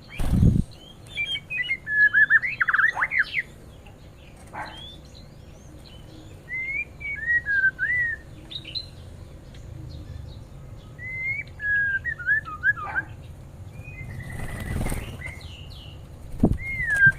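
Aviary songbirds calling in short, rapid whistled and warbled phrases, coming in three bursts with quieter gaps between. Two dull thumps, one at the very start and one about three-quarters of the way through.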